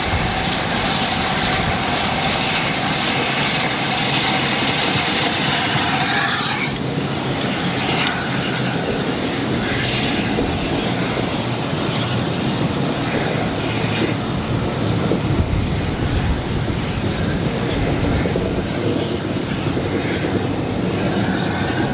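LNER A4 Pacific steam locomotive 60009 working a passenger train past at speed: its rapid, regular exhaust beats and hiss, which cut off suddenly about seven seconds in as the engine passes. After that comes a continuous rumble and clickety-clack from the coaches' wheels running over the rails.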